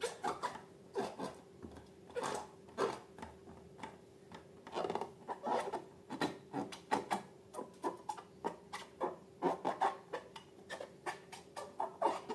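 Slime being worked by hand, giving irregular sticky clicks and squelches several times a second, over a faint steady hum.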